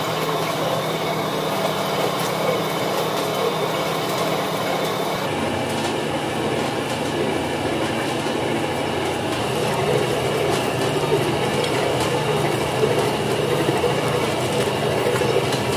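Large commercial dough mixer running, its hook churning a heavy batch of lavash dough in a big steel bowl: a steady mechanical hum and rumble.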